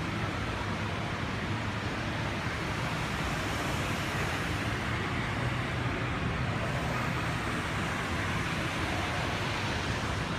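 Steady background din of a large, echoey indoor concourse: an even rushing noise with a low hum underneath, unchanging throughout.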